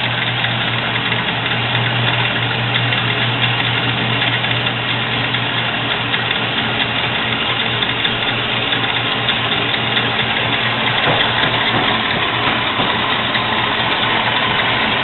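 JET 7" x 12" horizontal band saw running steadily, its 3/4 hp electric motor humming while the blade saws through stock as the head lowers on the hydraulic down feed.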